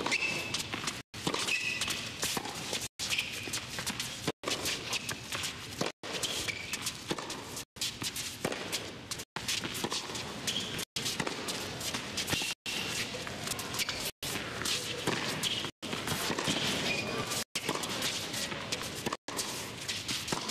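A tennis rally on an indoor court: rackets striking the ball back and forth, with the players' footsteps and shoe squeaks. The sound cuts out for an instant about every second and a half.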